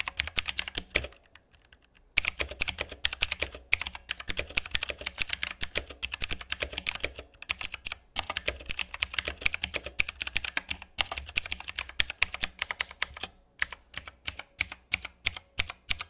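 Typing on a Motospeed GK89 mechanical keyboard with clicky Outemu blue switches on a metal plate: a dense, fast stream of sharp key clicks. There is a pause of about a second near the start, and the keystrokes come slower and more spaced out near the end.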